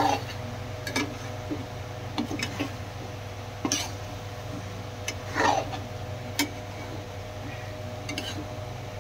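Perforated metal spatula scraping and knocking against a metal kadai while idli pieces are stirred into masala gravy, in irregular strokes a second or so apart. A steady low hum runs underneath.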